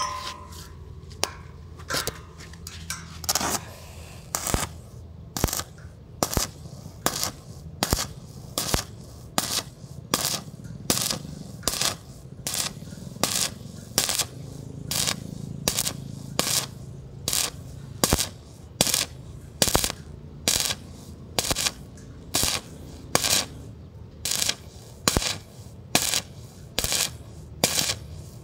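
Short, evenly spaced strokes of metalwork on steel, a little under two a second, each a brief scraping or striking burst, over a low steady hum.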